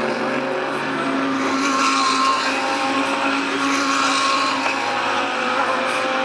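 GT3 race car engines running on the circuit, several steady engine tones heard at once over a constant hiss of tyre and track noise.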